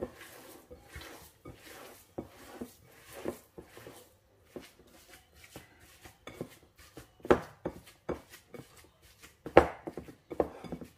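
Bare hands squeezing and working a crumbly tvorog (farmer's cheese) mixture in a glass bowl: irregular soft squelches and taps of hands and fingers against the dough and the glass, with two louder taps about seven and nine and a half seconds in.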